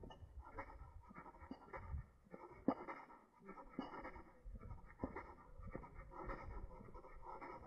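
Faint footsteps on a dirt path: irregular scuffs and clicks, the sharpest a little under three seconds in, over a low rumble.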